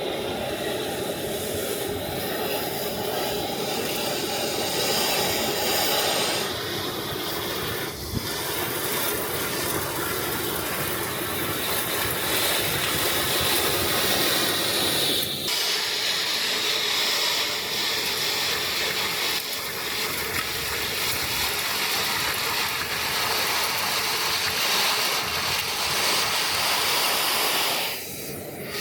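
ECOBULL TAN industrial vacuum's 480-volt three-phase side channel blower running, with a steady rush of air through the hose as it picks up dry foundry dust, slag and metal chips. The tone of the rush shifts a couple of times and dips briefly near the end.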